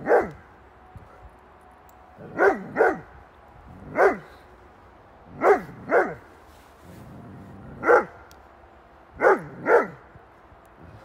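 Curly Coated Retriever barking at the costumed 'ghost' of a temperament test: about nine loud barks, several in quick pairs, each dropping in pitch.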